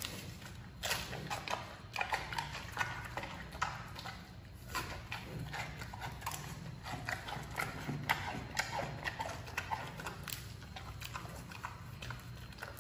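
Giant panda biting and chewing bamboo shoots: irregular wet crunches and cracks several times a second.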